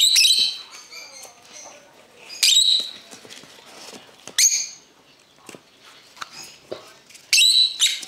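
Cockatiels calling: four loud, high-pitched calls, one at the start, one about two and a half seconds in, one about four and a half seconds in and one near the end, with fainter chirps between.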